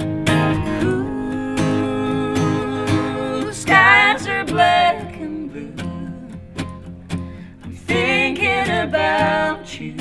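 Two acoustic guitars playing a slow, gentle song, strummed and picked, with a voice singing two short phrases, one about four seconds in and one near the end.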